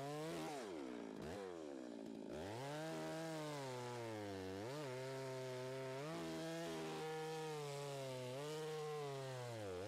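Perla Barb 91.6cc two-stroke chainsaw at full throttle, cutting through a dry, very hard bloodwood log. The engine note sags deeply about a second in, then climbs back, and dips and recovers several more times as the chain bites under load.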